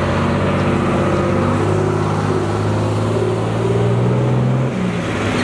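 Fire engines driving past close by, their engines running loud and steady; the engine note rises gradually and then drops near the end as the truck eases off.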